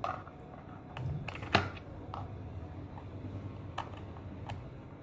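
Scattered small plastic clicks and taps, the loudest about a second and a half in, as a screwdriver works on the battery-compartment cover of a toy RC car's remote control.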